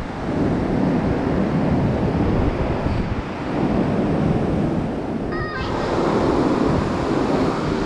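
Surf breaking on the beach, swelling and easing about three times, with wind buffeting the microphone.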